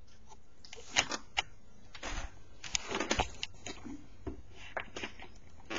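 Handling noise from the camera being moved about: two sharp clicks about a second in, then rustling and irregular knocks.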